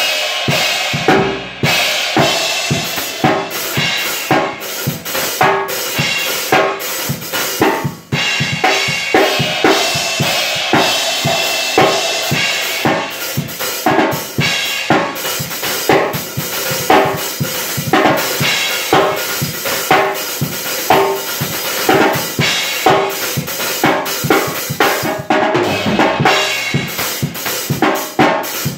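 A drum kit played continuously in a steady beat, with snare, bass drum and cymbals, and a brief break about eight seconds in.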